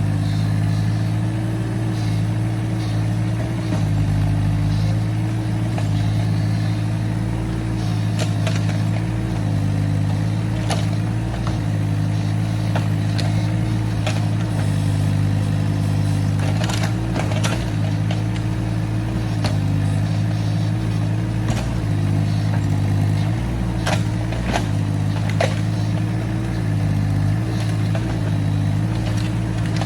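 Excavator's diesel engine running steadily with small rises and dips in speed. Sharp clanks and knocks come at irregular intervals, a few seconds apart.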